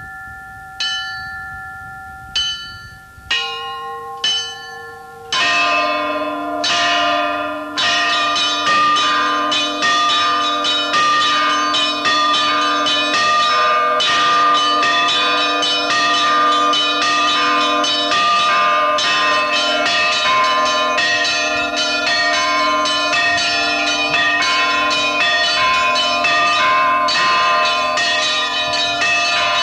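Orthodox church bells: a few separate strikes of small bells, then from about five seconds in a full peal of small bells rung rapidly over the steady ringing of a larger, deeper bell.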